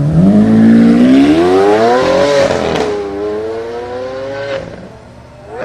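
A supercar engine accelerating hard away, its pitch climbing through one gear, dropping at an upshift about two and a half seconds in, then climbing again through the next gear before fading as the car pulls away.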